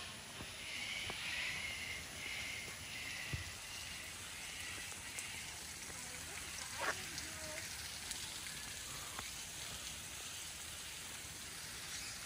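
Steady outdoor hiss with faint high bird chirping in the first few seconds and a few light clicks.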